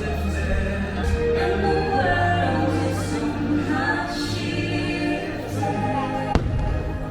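Fireworks-show soundtrack: orchestral music with a choir singing, with one sharp bang about six seconds in.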